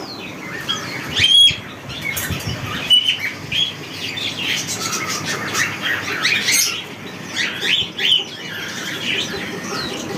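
Caged cockatiels and budgerigars chirping and squawking over one another, with a few short flurries of wing flapping.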